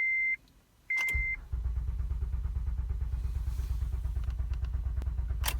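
Two short electronic beeps, then the 2008 Acura TL's starter cranking the engine at an even rhythm for about four seconds without it firing, ending with a click as the key is let go. The engine turns over but won't start, which the owner suspects is a security or key problem, with the green key light flashing.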